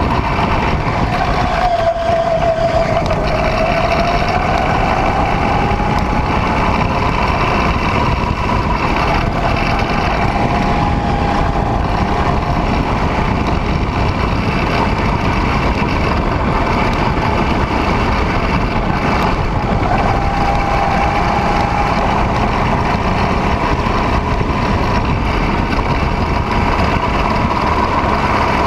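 Go-kart engine running at speed under the driver, heard onboard with a steady rush of noise; its pitch drops about two seconds in, as for a corner, and climbs back over the next few seconds, with smaller dips later.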